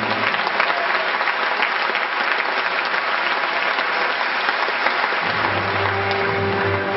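Crowd of spectators applauding, a dense steady patter of many hands clapping. The low notes of the backing music come back in about five seconds in.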